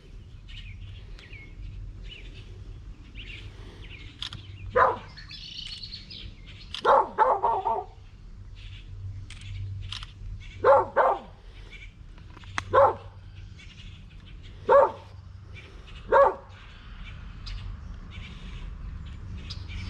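Dog barking, single barks and a short run of barks about six times, a couple of seconds apart, with birds chirping faintly between.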